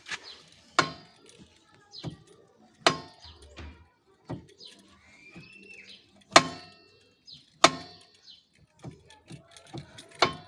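Loose motorcycle center stand knocking and rattling: about five sharp metallic clanks, each ringing briefly, with lighter rattles between them, as the bike is moved. A bird chirps once in the middle.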